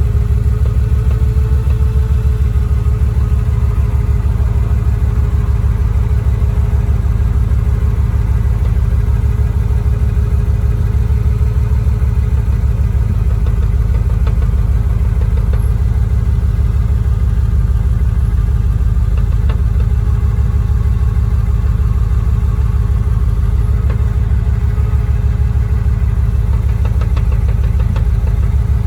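Manual-transmission car idling in neutral with a rattle from a newly fitted short shifter, a steady fast buzz over the engine's idle. The rattle only shows in neutral and stops when the shifter is pushed forward a little; shims at the shifter have not cured it.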